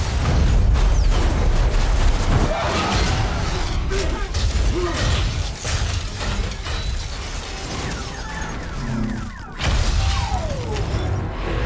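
Film battle sound mix of a giant robot and monster fighting through a city street: heavy booming impacts, smashing debris and metal creaking and grinding over a deep rumble, with music underneath. The din drops briefly about nine and a half seconds in, then another crash comes.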